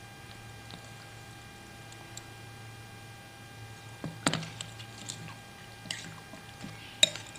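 Eating utensils clinking against a bowl of bakso with small wet stirring and eating noises: a few sharp clicks, the loudest about four seconds in and another near the end, over a steady low hum.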